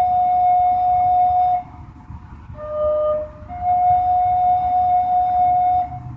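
Wind instrument playing slow, held notes: one long note ends about a second and a half in, a short two-tone phrase follows, then another long note of over two seconds, over a low steady rumble.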